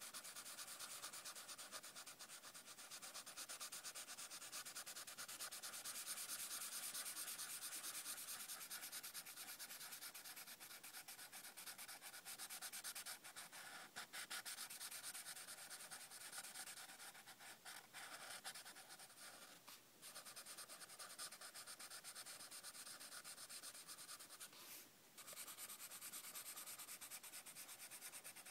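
Felt-tip marker scratching back and forth on notebook paper in rapid strokes, coloring in a filled area. Faint, with a couple of brief pauses in the strokes.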